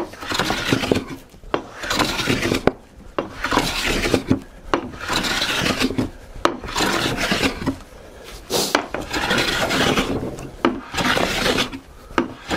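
Metal bench plane being pushed in repeated rasping strokes along a white oak board, about one stroke every second and a half, with short clicks between strokes. The blade skips over the tops of the high points left by the scrub plane, so each stroke cuts unevenly.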